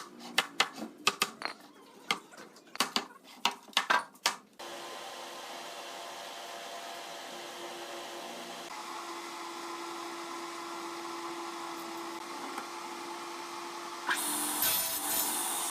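A run of irregular sharp taps and knocks. Then, about four and a half seconds in, an electric motor starts and runs steadily with a steady hum, turning louder and rougher about a second before the end.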